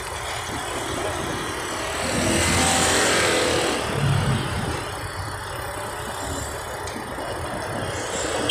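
Street traffic noise heard while riding past queued cars: engines and a steady rush of noise, swelling louder for a second or so about two seconds in.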